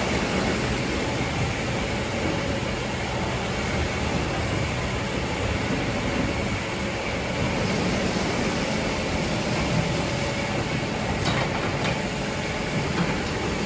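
Automatic rollover car-wash machine running, its rotating brushes scrubbing a car under water spray: a steady, even noise with a low hum underneath.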